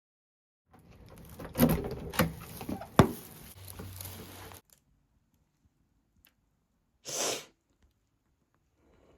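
Handling noise: rustling with three sharp knocks over about four seconds, then a short hiss a few seconds later.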